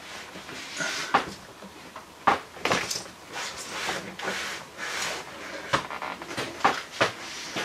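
Van windscreen being worked out of its rubber surround by hand: irregular sharp knocks and clicks, with rubbing and scraping noise between them.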